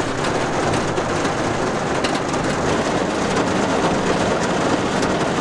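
Heavy rain pounding down in a thunderstorm, a steady even hiss.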